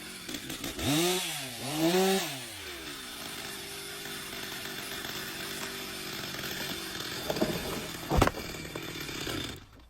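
Chainsaw revved twice in quick succession, then running steadily, with a sharp knock about eight seconds in; the sound drops away near the end.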